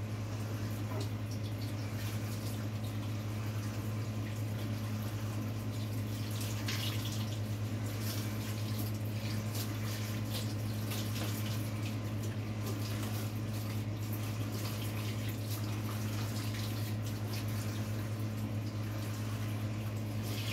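Water running from a kitchen faucet into the sink while the sink is rinsed out, with scattered small splashes and knocks. A steady low hum runs underneath throughout.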